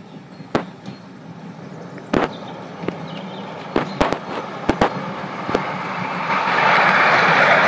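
Ride-on miniature railway locomotive approaching along light jointed track: a steady low hum and a rolling rumble that grows louder over the last couple of seconds as it comes close, with sharp irregular clicks as the wheels cross the rail joints.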